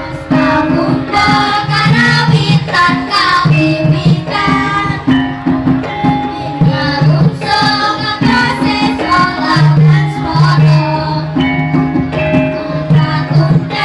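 Javanese gamelan ensemble playing: bronze metallophones and gongs holding ringing tones over a steady pulse, driven by kendang hand-drum strokes, with singing over the top.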